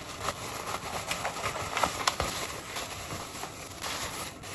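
Thin plastic bag crinkling and rustling in irregular crackles as it is opened and a sheet of lavash flatbread is pulled out of it.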